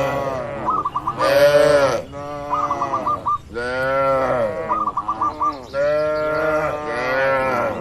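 Cattle mooing, several long calls one after another, each rising and then falling in pitch, with short chirping calls in between.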